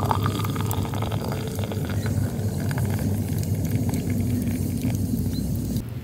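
Tea poured in a steady stream from a brass teapot into a glass mug, splashing as the glass fills. The pouring stops abruptly near the end.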